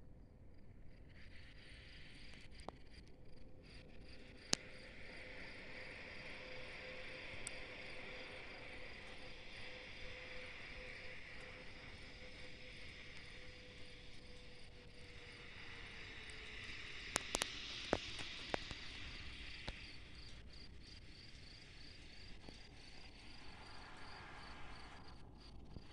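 Faint, steady, evenly pulsing high chirping of insects, with a hiss that swells and fades twice and a few sharp clicks.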